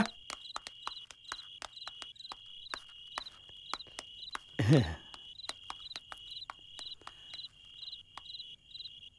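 Crickets trilling steadily in a high, evenly pulsing chorus, with scattered sharp clicks. About halfway through, a voice calls out once, briefly and loudly.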